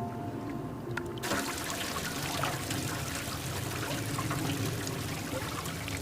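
Running water trickling and splashing, a dense hiss full of small splashes, which starts up suddenly about a second in as soft music fades out.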